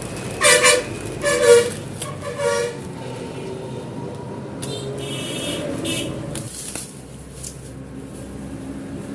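A vehicle horn honking three short times in the first three seconds, over a steady background of road traffic.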